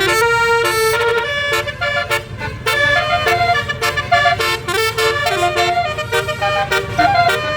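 A 12-note 'telolet basuri' multi-trumpet bus air horn playing a quick melody, its notes changing every fraction of a second, over a low steady rumble.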